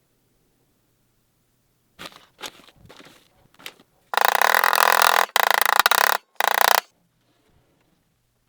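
Shop tool working on a knife: a few light knocks, then three loud, harsh scraping passes of about a second each that start and stop abruptly.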